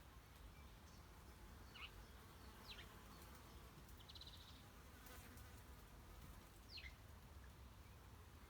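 Faint, distant small-bird calls: three short chirps that sweep down in pitch, plus a brief rapid trill about four seconds in, over a low steady drone.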